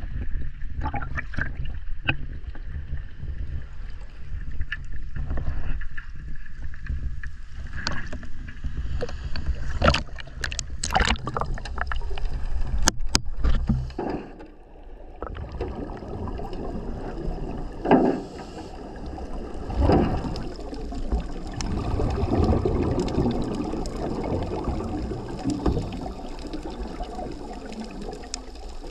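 Choppy sea water splashing and sloshing against a camera held at the surface, over a steady low rumble, with sharp splashes about ten to thirteen seconds in. About halfway it changes to muffled underwater sound with several bursts of bubbling.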